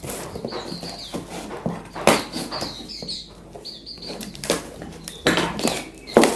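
Wild-caught grey-cheeked bulbuls (cucak jenggot) in a shipping box giving short, high squeaky calls, with several loud sudden flutters and knocks as the birds beat their wings against the box.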